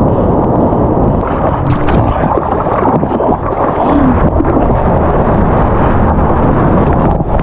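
Sea water rushing and splashing over a surfboard-mounted camera as the board moves through small waves, with wind buffeting the microphone. The rush is loud, steady and muffled.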